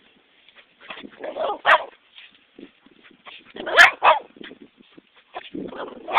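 Shih Tzu barking in excited play at a stick, in several short bursts, the loudest about four seconds in.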